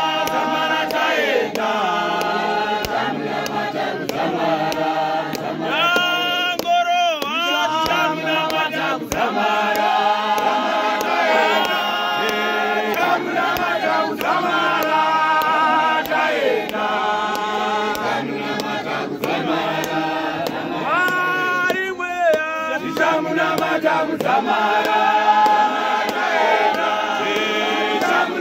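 A white-robed church congregation of men and women singing a hymn together, unaccompanied. Twice a voice swoops up and down in pitch above the group.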